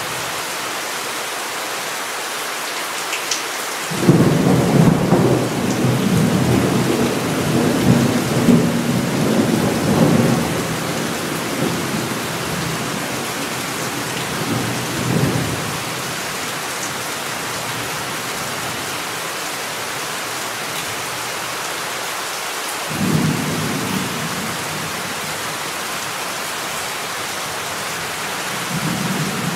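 Thunderstorm: steady heavy rain hissing throughout. A long, loud rumble of thunder begins suddenly about four seconds in and rolls for roughly twelve seconds, and a shorter rumble comes near the end.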